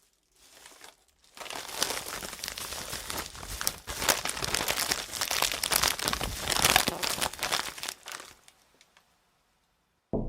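Packaging being crumpled and crinkled by hand: a dense, irregular run of crackles that starts softly, grows louder through the middle and dies away about nine seconds in.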